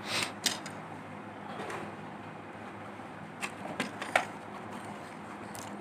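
Scattered small clicks and taps of hand tools being handled during a phone repair, over a steady low hum.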